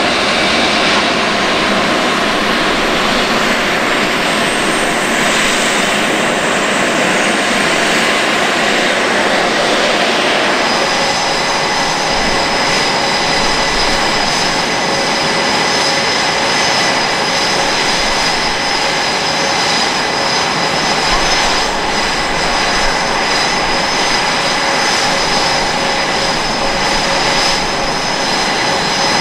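Blue Angels F/A-18 Super Hornets' General Electric jet engines running loudly on the ramp after start-up, a steady whining noise. About eleven seconds in, new steady high whining tones join and hold.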